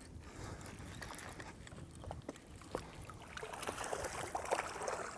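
Faint water trickling and lapping around a small boat, with a few light scattered clicks.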